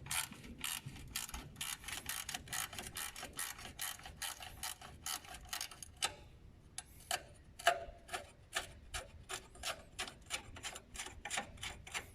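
10 mm ratchet wrench clicking rapidly as it is worked back and forth on a car battery hold-down bolt, with a short pause a little past the middle.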